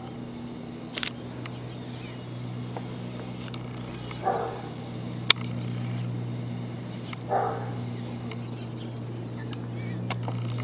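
A dog barking, two short barks about four and seven seconds in, over a steady low hum, with a sharp click between them.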